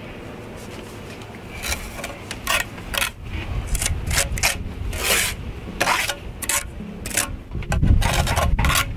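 Steel mason's trowel scraping wet mortar against stone as a cut stone is bedded into a wall, with stone rubbing and knocking into its mortar joint. The scrapes and knocks come irregularly, starting about a second and a half in.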